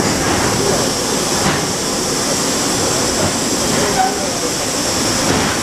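Steady train noise from an ED4M electric multiple unit standing at a station platform: a continuous rumble with a hiss over it, unchanging throughout.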